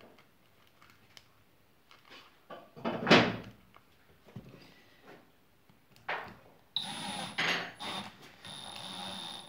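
Cordless drill-driver running in short bursts from about seven seconds in, a steady motor whine, driving a screw to fix the end of a sandpaper strip to a sanding drum. Before it, light handling clicks and one loud knock about three seconds in.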